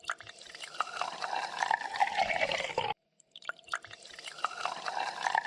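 Liquid pouring and splashing with small drips. It stops abruptly, and after a short gap the same pouring sound plays again.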